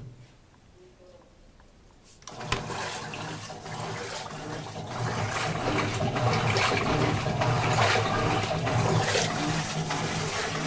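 Electrolux LTE09 washing machine starting up about two seconds in: water rushing with a steady low motor hum, growing a little louder. It is being test-run after its rat-gnawed wiring harness was repaired.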